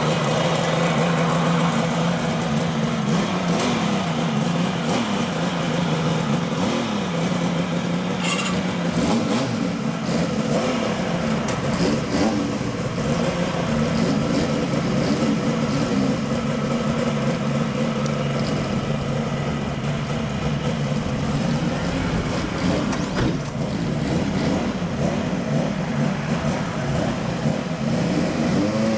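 Kawasaki Mach II S2 350SS two-stroke triple on Rooney expansion chambers running together with a Kawasaki Zephyr 400, the revs rising and falling a few times in the first several seconds, then the bikes pulling away.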